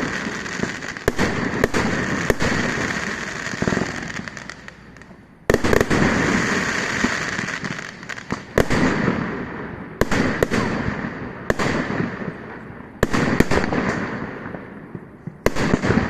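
Aerial fireworks bursting in quick succession, sharp bangs each trailing off into crackling and rumbling echoes. A heavier barrage of bursts starts about five seconds in.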